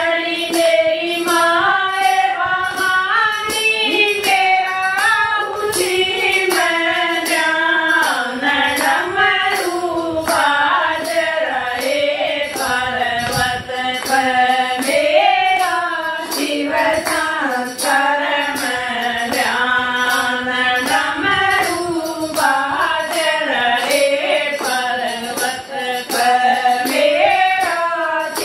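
Group of women singing a Hindi devotional bhajan in unison, with hand-clapping and a jingling hand-held clapper keeping a steady beat about twice a second.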